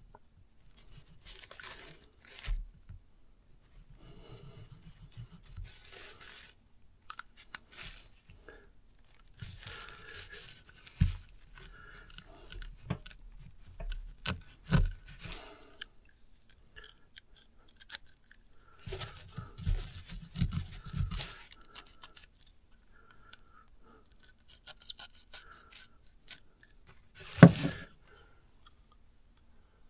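Irregular scraping, cutting and tearing sounds of a sharp knife working through material by hand, in short bursts with pauses, and one louder knock about 27 seconds in.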